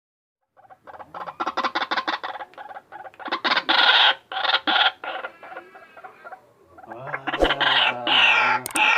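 White-breasted waterhen calling: loud runs of rapid, repeated harsh notes, one starting about half a second in and a second from near the end.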